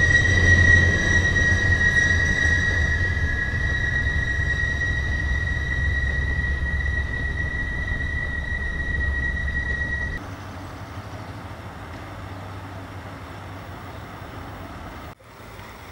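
Chepe Express passenger train's steel wheels squealing on curved track: one steady high tone over the low rumble of the rolling cars, slowly fading. About ten seconds in it cuts off to a quieter steady noise.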